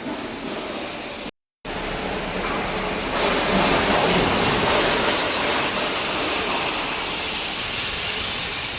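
Freon refrigerant hissing out of a corn harvester's air-conditioning system as it is discharged. A loud, steady hiss starts about a second and a half in and grows stronger toward the end.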